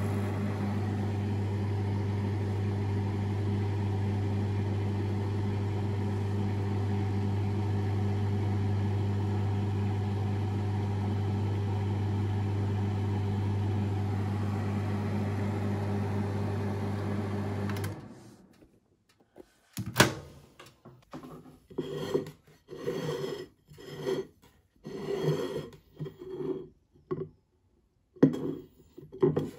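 Microwave oven running with a steady low hum that cuts off suddenly about two-thirds of the way in. A sharp click follows a couple of seconds later, then a series of short handling noises.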